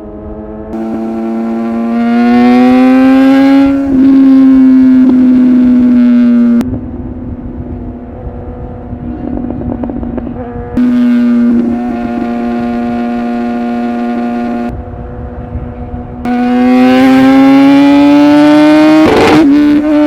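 Sport motorcycle engine revving high while riding. Its pitch climbs under throttle, drops slightly at an upshift about four seconds in, then holds at a steady high pitch, alternately louder and quieter as the throttle opens and eases. Near the end it climbs hard again, with a quick break in the note at a shift.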